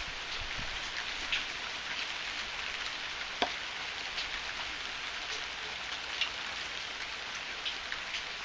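Heavy rain falling steadily, a dense even hiss, with scattered sharper drops ticking on nearby surfaces; a few louder ones land about a second and a half, three and a half and six seconds in.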